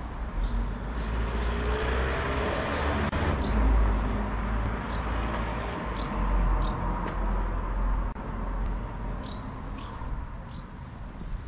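Outdoor traffic noise: a car passing on a nearby road, loudest about three to four seconds in, over a deep rumble.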